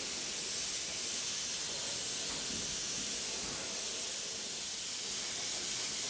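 Airbrush spraying paint, a steady high hiss of air and paint.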